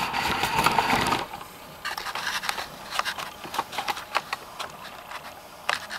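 A scraping rustle for about the first second, then scattered light ticks and clicks: the Dana 44 ring gear being rocked against the pinion through its few thousandths of backlash while a dial indicator reads it.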